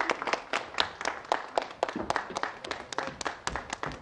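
A small group of people clapping, the individual claps distinct, tapering off toward the end.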